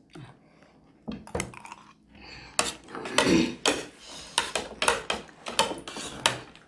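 Metal spoons and forks clinking and scraping against ceramic plates, a string of sharp clinks that starts about a second in.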